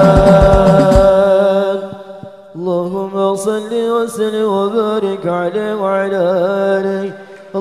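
A group of male voices sings Arabic sholawat together over low, evenly spaced beats, holds a last note and fades out about two seconds in. After a short pause, a single male voice starts a slow, melismatic chant.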